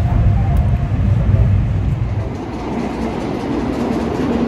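Deep, steady rumble inside a moving Shinkansen bullet train. About two seconds in it gives way to the lighter running noise of an N700A Shinkansen rolling slowly past the platform, with faint clicks.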